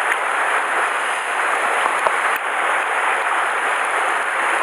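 Shallow mountain stream rushing over a pebble bed, a steady hiss of moving water close to the microphone, with a couple of small knocks about two seconds in.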